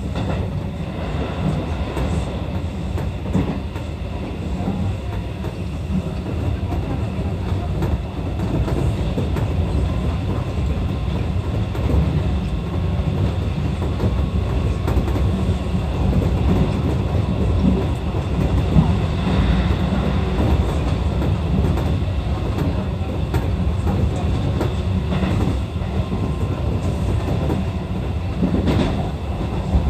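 Seibu 101-series electric train running along the line, heard from inside the front car. It makes a steady rumble with a few sharp clicks from the wheels over the track.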